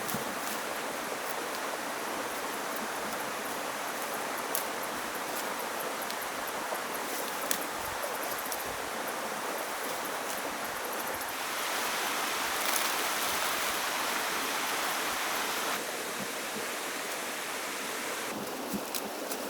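Steady rush of flowing water, like a stream, with a few faint clicks; it gets louder for about four seconds in the middle.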